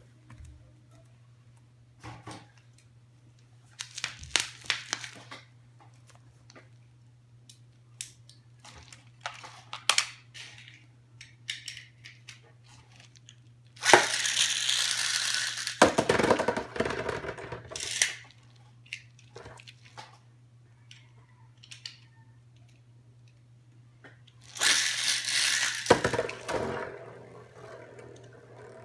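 Packaging being handled and opened by hand: scattered clicks and rustles, with two longer louder spells of rustling and tearing, one about 14 seconds in and one about 25 seconds in. A steady low hum runs underneath.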